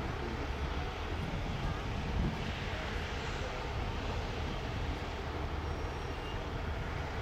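Union Pacific Big Boy 4-8-8-4 steam locomotive starting off slowly, a steady hiss of steam from its open cylinder cocks over a low rumble, with one small thump about two seconds in.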